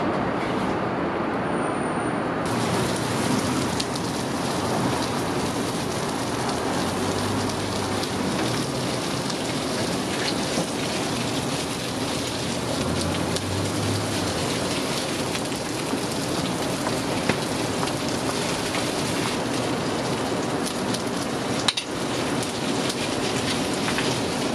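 Hotteok frying in oil on a flat griddle: a steady crackling sizzle that fills in about two and a half seconds in, after a short stretch of duller street noise.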